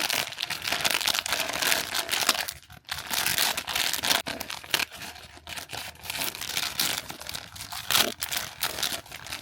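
Packaging of a Stretchy Foods Secret Menu mystery toy being torn open and crinkled by hand: a dense run of crackles and tearing, with a short pause about two and a half seconds in.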